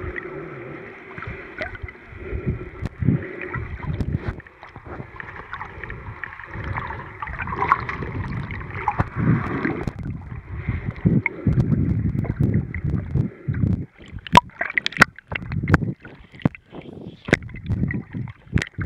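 Underwater water noise around a swimmer's camera, gurgling in uneven low rumbles. From a little past halfway, sharp clicks and pops break in, most of them in the last few seconds.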